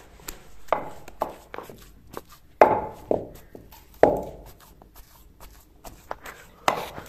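Wooden pestle pounding boiled potatoes and green chilli spice mix in a clay mortar: irregular dull thuds, roughly one a second, a few much louder than the rest.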